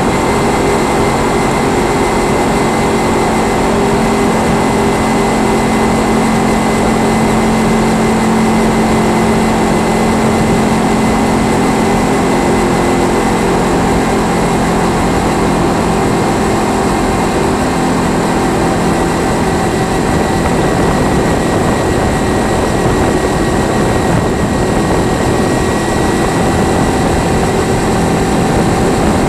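Kawasaki Ninja 300's parallel-twin engine running at a steady cruise, with a steady drone and heavy wind and road noise on the bike-mounted camera's microphone.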